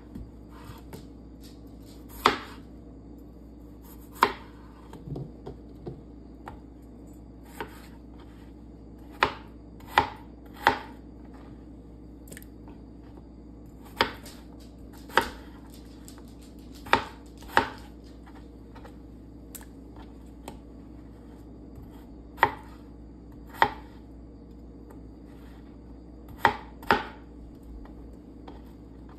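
Kitchen knife dicing peeled potatoes on a cutting board: sharp knocks of the blade striking the board, spaced irregularly a second or two apart and sometimes in quick pairs, over a faint steady hum.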